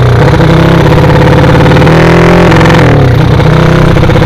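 Drag-race motorcycle engine running loud while ridden, its pitch climbing about two seconds in and dropping back about a second later.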